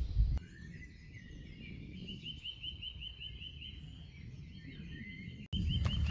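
A songbird singing runs of fast, repeated chirps, over a steady low rumble that gets louder near the end.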